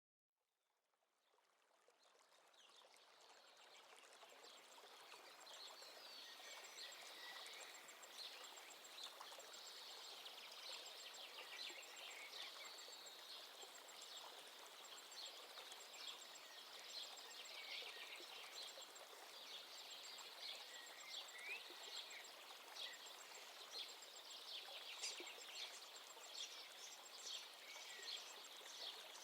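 Faint birdsong, many short chirps and calls over a steady rushing hiss like running water, fading in over the first few seconds.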